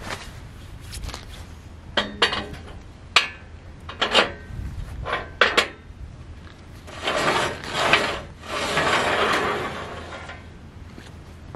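Square steel tube being handled on a steel frame: a string of sharp metal clanks as it is set down, then a rough scraping of steel on steel in a few swells as the tube is slid along the frame rails.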